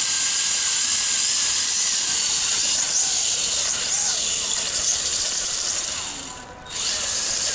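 WLToys V262 quadcopter's brushed motors and propellers whirring in flight: a steady high hiss, with the motor pitch sliding up and down. About six and a half seconds in, the sound drops away briefly and then comes back. One of its brushed motors is overheating and failing.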